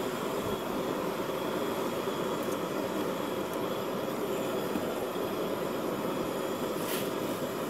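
Propane burners of a two-burner Coleman camp stove running with a steady hiss under two pans of frying vegetables and mushrooms. A single light click, a utensil against a pan, about seven seconds in.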